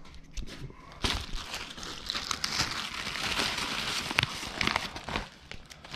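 Clear plastic bag crinkling and paper sheets rustling as a bundle of instruction papers is pulled out and handled. It starts suddenly about a second in and eases off briefly near the end.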